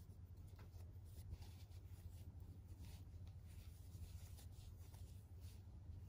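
Near silence: faint, soft scratching of yarn being pulled through stitches by a crochet hook, over a low steady hum.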